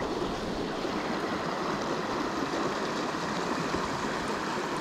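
Creek water running over a shallow rocky riffle into a pool, a steady rushing.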